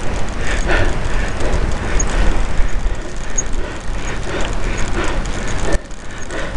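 Wind buffeting the microphone of a camera carried on a moving bicycle: a loud, rumbling rush that dips briefly near the end.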